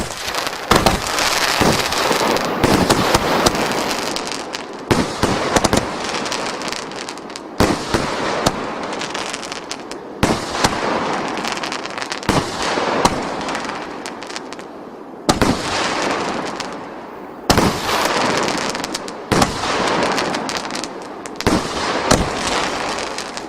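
A 19-shot, 40 mm consumer firework cake going off: sharp launch thumps and aerial bursts every second or two, with continuous crackling between them.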